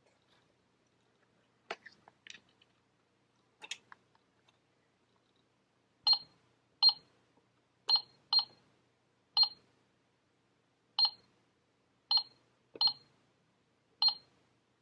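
Toy cash register keys being pressed, each press giving a short electronic beep: nine beeps at uneven intervals, after a few light plastic clicks in the first seconds.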